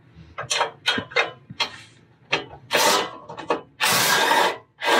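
Hand wrench working a motor mount bolt on a steel frame bracket: a run of sharp metal clicks, then two longer rasping bursts about three and four seconds in.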